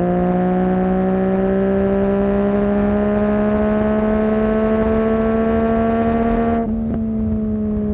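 2020 Yamaha MT-09's inline three-cylinder engine through a Barker full-system exhaust, pulling under load with revs climbing slowly. Near the end the throttle closes: the sound drops suddenly and the revs begin to fall.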